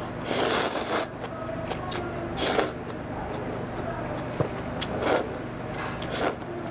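A person slurping noodles from a bowl of jjamppong, spicy Korean-Chinese noodle soup. There are four slurps; the first is the longest, just under a second.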